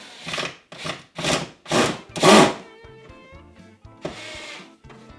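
Five quick rasping strokes about half a second apart, growing louder, then one more a little later.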